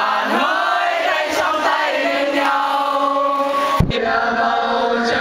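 A crowd of young people singing a song together in unison, loud and steady, with a short thump a little under four seconds in.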